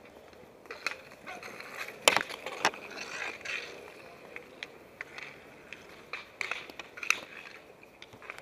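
Inline skate wheels rolling and scraping on asphalt, with sharp clacks of hockey sticks hitting the ball and the pavement; the loudest two clacks come about two seconds in.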